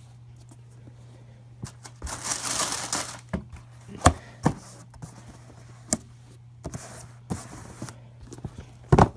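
Handling of a pair of Air Jordan 11 Low sneakers and their packaging: a rustle of paper or plastic about two seconds in, then scattered knocks and taps, with two sharp ones near the end.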